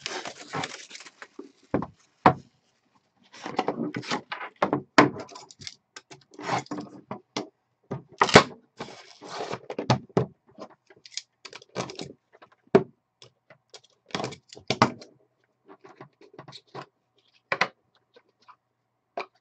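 Hands unwrapping and opening a trading card box: rustling of plastic wrap and cardboard, with scattered taps and knocks as the lid and the inner pack box are handled. The sounds come in irregular short bursts, with busier stretches of rustling a few seconds in and again around the middle.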